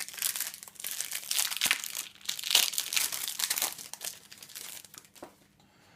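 Wrapper of a Panini Adrenalyn XL trading-card pack crinkling and tearing as it is opened by hand, dying away after about five seconds.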